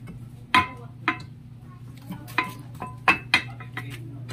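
Metal scooter parts clinking and tapping against each other as they are handled at the rear wheel hub: a string of sharp, separate metallic clinks with a short ring, the loudest just over half a second in and just after three seconds.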